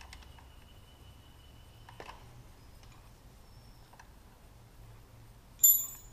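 Faint scattered clicks and taps of hands and tools at work on the motorcycle's fittings. Near the end there is one sharp clink that rings briefly, the loudest sound here.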